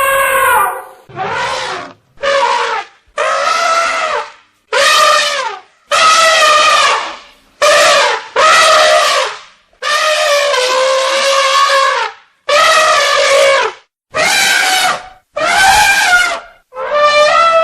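Elephant trumpeting: about a dozen loud, brassy calls of roughly a second each, with short silent gaps between them.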